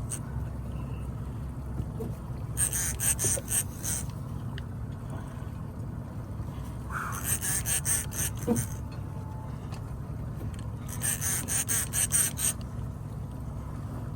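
Spinning fishing reel clicking in short rapid runs, about every four seconds, as a big amberjack is played up on the line. A steady low rumble of the boat runs underneath.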